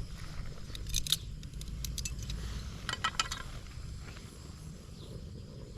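Light metallic clinks and rattles of cookware on a camping stove, once about a second in and again in a quick cluster around three seconds in, over a steady low rumble.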